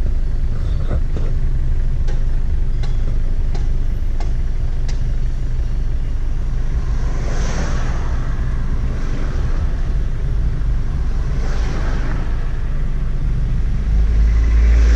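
Steady low rumble of a car's engine and tyres, heard from inside the cabin while driving in slow traffic. Oncoming vehicles pass with a brief rush about halfway through and again a few seconds later. A heavier low rumble near the end comes as a minibus passes.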